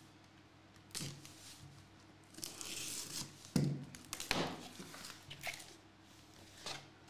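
A cardboard photo folder being opened by hand: card and paper rustling, scraping and tearing, with several sharp knocks, the loudest about halfway through, as the photo inside is slid out.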